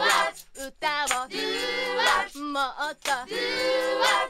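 Female J-pop vocal singing in short phrases, with two long held notes whose pitch wavers slightly, over a light backing.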